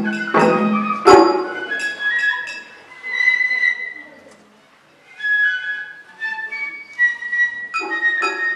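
Japanese festival hayashi music: a bamboo flute plays a melody over taiko drum strikes, with one hard drum hit about a second in. The drums then drop out and the flute plays alone, with a short lull about halfway through, before the drums come back in near the end.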